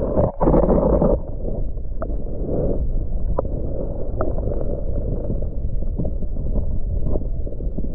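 Muffled underwater noise picked up by a camera held below the water surface: a dull, low rumble of moving water, louder with a few sharp clicks in the first second, then steady with scattered faint ticks.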